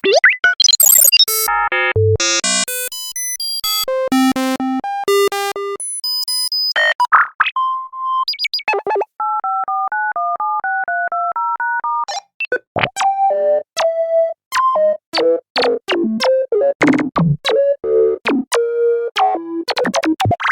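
A rapid succession of assorted electronic beeps: short synthesized tones at constantly changing pitches, some in quick runs of blips. In the middle comes a stretch of beeps alternating between two pitches, and near the end some beeps slide up and down in pitch.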